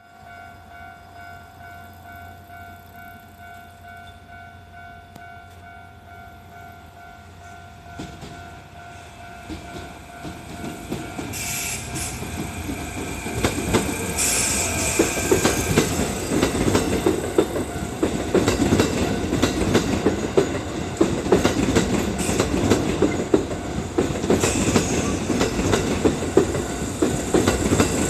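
A level-crossing alarm rings in a steady repeating pattern while a Kintetsu 5820 series electric train approaches. About halfway through the train passes close by, loud, with wheels clattering over the rail joints.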